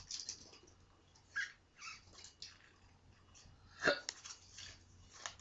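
Faint, scattered rustling and flicking of Yu-Gi-Oh! trading cards and foil pack wrapper being handled, with a louder rustle about four seconds in.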